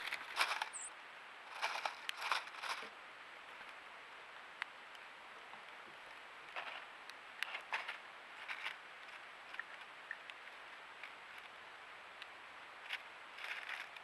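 Birds feeding at a wooden tray feeder: scattered short scratchy rustles and taps as a female northern cardinal and a white-throated sparrow peck and shuffle through mixed seed, with a busier flurry in the first three seconds, over a steady hiss.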